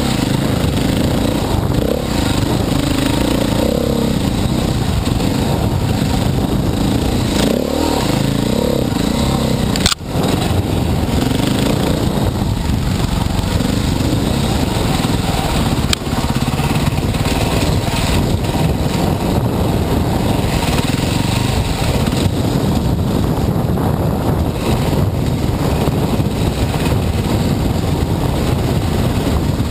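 Dirt bike engine running under changing throttle, its pitch rising and falling, under a steady rushing noise as the bike rides a forest trail, heard from the rider's helmet camera. A sharp click with a brief drop in sound about ten seconds in.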